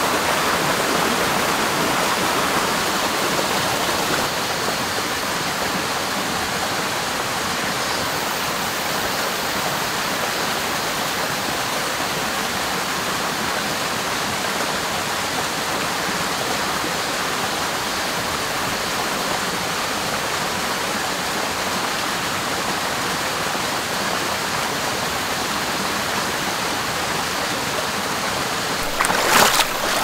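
Mountain stream rushing steadily over rocks. Just before the end comes a short, louder splash as a sandaled foot kicks into the shallow water.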